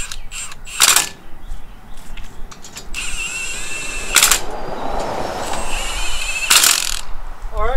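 Cordless impact wrench driving in the bolts that hold a steel bumper and grill guard on an old Ford tractor. A sharp knock comes about a second in, then the wrench runs with a whine from about three to seven seconds, with hard rattling strikes near four and six and a half seconds.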